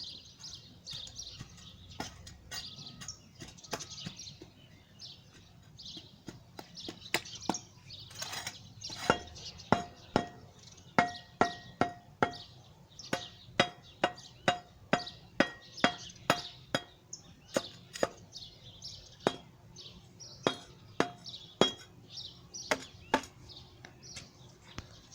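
A metal tool striking brick during masonry work: scattered light knocks and scraping at first, then from about nine seconds in a long steady series of sharp taps, one to two a second, each with a short metallic ring.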